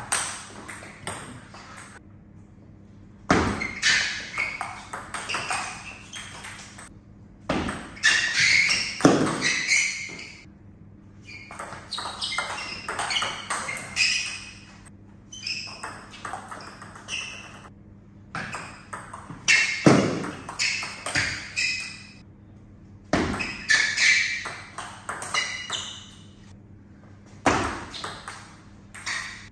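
Table tennis ball clicking back and forth off the rackets and the table in quick rallies of several strokes each, with short pauses between points.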